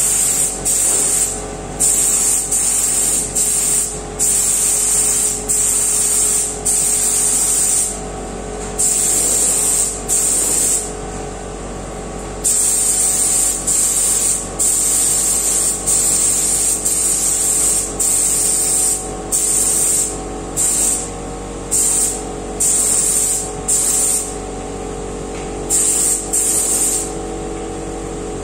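Compressed-air paint spray gun spraying in repeated bursts as the trigger is pulled and released, each hiss lasting under a second to about a second and a half, with a short pause about halfway through. A steady hum runs underneath.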